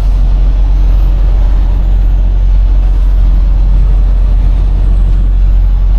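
Semi truck's diesel engine running under way with road noise: a steady, loud low drone.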